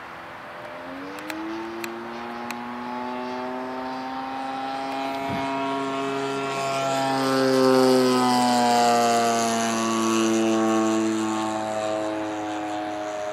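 Zenoah ZG62 single-cylinder two-stroke petrol engine of a giant-scale RC Corsair running in flight with its propeller. The pitch climbs as the throttle opens about a second in, and the sound grows louder to a peak around the middle as the plane passes closer, its pitch shifting, before easing off near the end.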